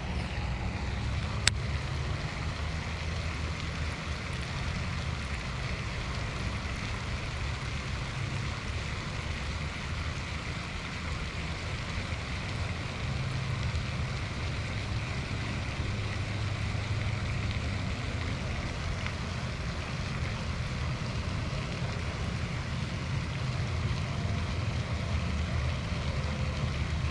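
Wind buffeting the microphone as a steady low rumble, over a constant rushing hiss like moving water, with one sharp click about a second and a half in.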